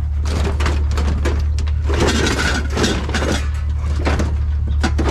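Junk being shifted and pulled about in a dumpster: a dense run of irregular knocks, clatters and scrapes over a steady low hum.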